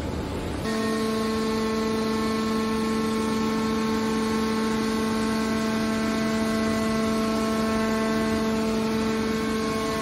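Hydraulic power unit of a horizontal scrap metal baler running, a steady whining hum that holds an even pitch while the lid cylinder closes over the scrap. It sets in abruptly about half a second in, after a short stretch of noisy hiss.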